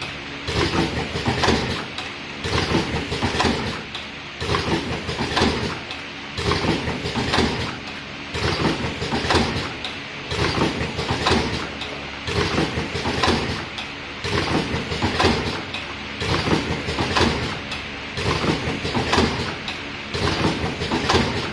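Vertical automatic cartoning machine running, its mechanical clatter swelling and easing in a regular cycle about every two seconds as it forms and packs boxes.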